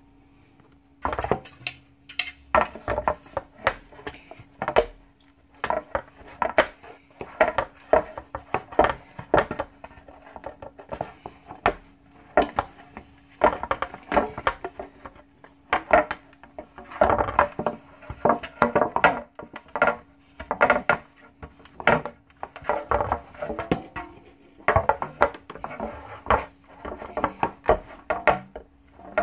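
Utensils and a cake tin clattering and tapping irregularly on the counter as the tin is greased with butter and dusted with flour. A faint steady hum sits underneath.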